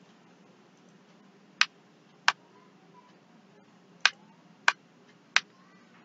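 Five sharp single clicks of a computer mouse, unevenly spaced over about four seconds, over a faint steady hum.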